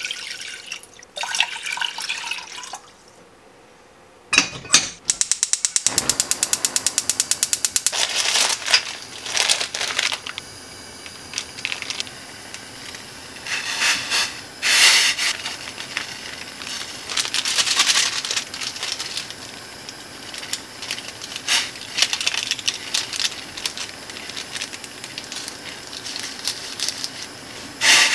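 Water poured from a glass measuring cup into a stainless steel pot. After a short pause comes a fast run of clicks, typical of a gas stove igniter, before a steady hiss from the lit burner under the pot. Bursts of rustling and light knocks follow as the instant noodles are handled.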